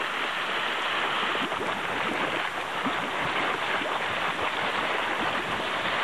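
Geyser erupting: a steady rush of spouting water and steam, with continual bubbling and splashing.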